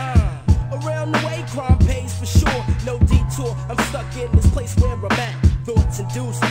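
Hip hop backing music with a steady drum beat over a bass line; no words are rapped here.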